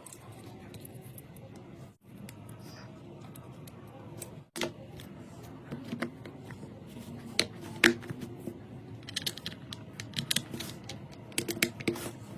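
Irregular sharp clicks and taps of small tools and parts being handled, clustering in quick runs in the second half, over a steady low hiss.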